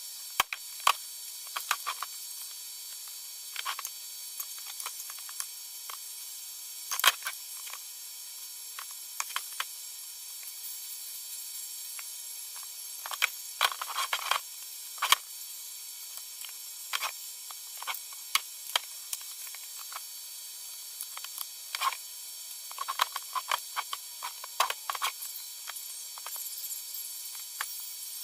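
Irregular light clicks and taps, some in quick clusters, from small parts and tools being handled while piezo pickups and 1/4-inch jacks are fitted into cigar box guitars. A steady hiss runs underneath.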